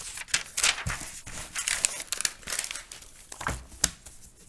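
A sheet of lined notebook paper rustling and crinkling as it is handled and laid down, with two sharp taps near the end.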